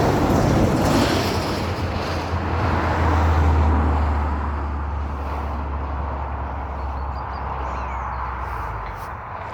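A motor vehicle running nearby: a steady low engine hum with a wash of road noise that grows fainter, the hum stopping shortly before the end.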